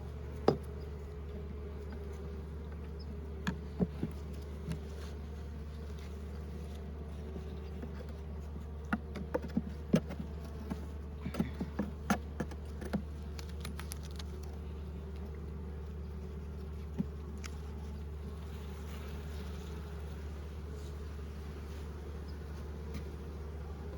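Honeybees buzzing steadily in an open hive, with scattered sharp clicks and knocks as wooden hive frames are pried loose and lifted out, most of them bunched together in the middle.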